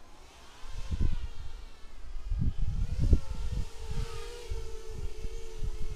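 FPV racing miniquad's electric motors buzzing in flight, the pitch wavering as the throttle changes and the sound of separate motors splitting apart in the second half. Irregular low thumps, louder than the buzz, run through it.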